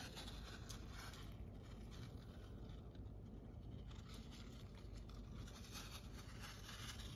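A hamster digging and shifting about in a plastic tub of bathing sand: faint, crunchy rustling and scraping of the grains, with many small crackles.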